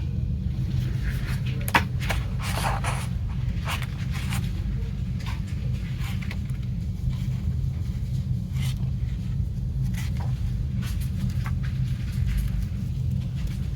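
Hands handling a Blu-ray box set's packaging: scattered clicks, taps and rustles, one sharper click about two seconds in, over a steady low hum.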